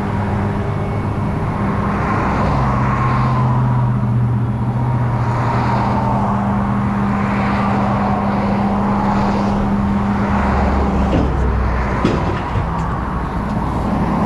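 A tow truck's engine runs with a steady hum, shifting pitch about two and a half seconds in and again near eleven seconds as the revs change, with road noise under it.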